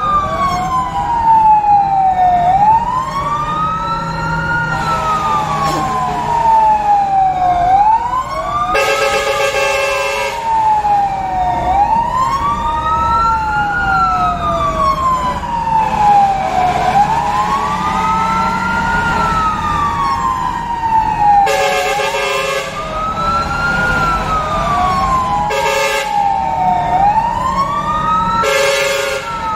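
Fire engine siren wailing, sweeping slowly up and down about every five seconds, with several horn blasts, the longest about nine seconds in and another near the end. The truck's engine rumbles low underneath, heard from inside the cab.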